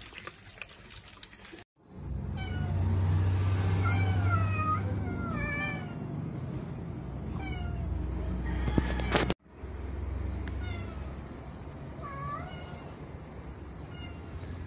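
Cats meowing: many short, high mews in quick succession over a low steady rumble, broken off abruptly twice.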